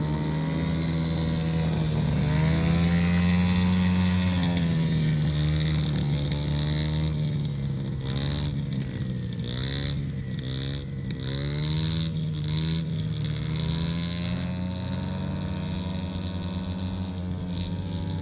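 Yamaha TT-R50's small single-cylinder four-stroke engine running as the dirt bike is ridden, its pitch rising and falling repeatedly with the throttle, over a steady low hum.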